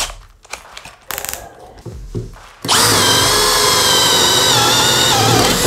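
A few clicks and handling knocks, then about two and a half seconds in a Bosch GSB 185-LI 18V cordless drill driver starts and runs with a steady whine, boring a 5/8-inch spade bit into pine. Its pitch dips slightly near the end.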